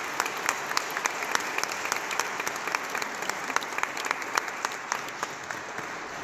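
A small group of people clapping their hands in applause. The clapping thins out and dies away near the end.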